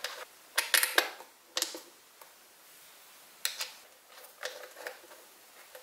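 Short metallic clicks and clatters of battery cable lugs and terminal hardware being fitted onto the terminals of deep-cycle batteries. Several quick clicks come about a second in and another cluster from about three and a half seconds.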